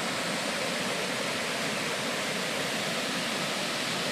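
Floodwater rushing steadily, a constant hiss-like roar of running water.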